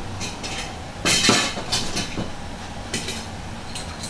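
Irregular knocks and clatter from parts and tools being handled, the loudest about a second in, followed by several lighter knocks.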